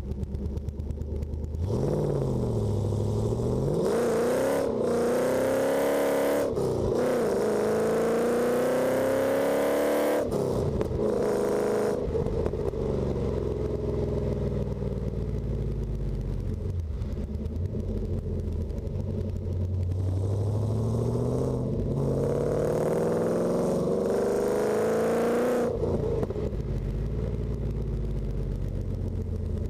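Holden VN Commodore SS's V8 engine accelerating hard, revs climbing and dropping back through several gear changes, then settling to a steady cruise before a second run of climbing revs and a shift near the end.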